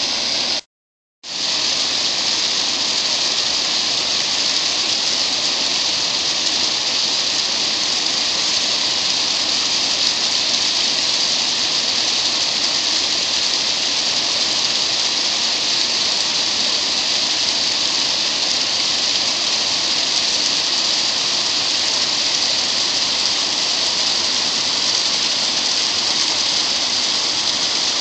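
Steady rushing of river water pouring over a low dam spillway and through shallow riffles. The sound cuts out completely for about half a second, about a second in, then resumes unchanged.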